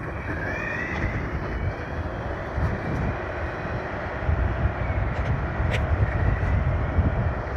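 Steady rolling rumble of board wheels on pavement while riding, with wind buffeting the microphone. A faint rising whine comes about a second in.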